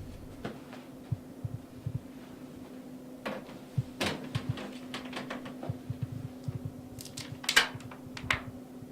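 Scattered light knocks, taps and clicks of a picture frame being handled and moved to look behind it, over a steady low hum.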